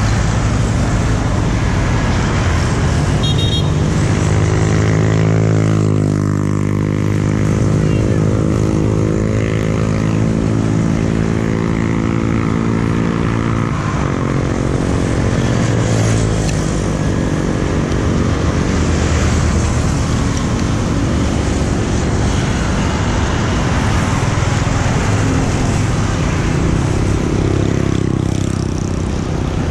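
Road traffic passing on a wet road: motorbikes and other vehicles going by, with a steady low rumble. One engine's note rises about six seconds in, holds, and falls away around fourteen seconds.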